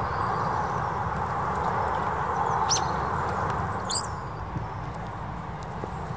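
Steady outdoor rushing background noise, with two brief high bird chirps near the middle.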